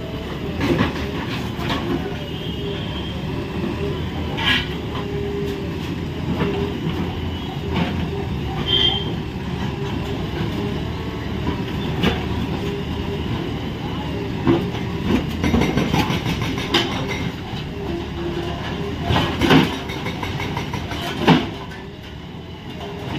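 Diesel engines of JCB machines running steadily during demolition, with sharp knocks and clanks every few seconds as a building is broken down.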